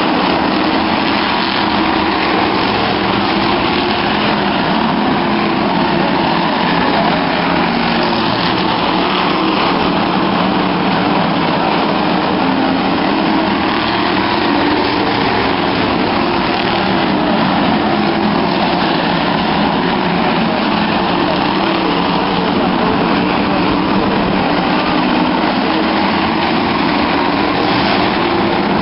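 Engines of a pack of stock cars racing around an oval track: many engines running at once, heard as one loud, steady din from the grandstand, with spectators' voices mixed in.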